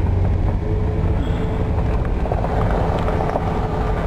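A car running at low speed, heard from inside the cabin: a steady low engine and road rumble.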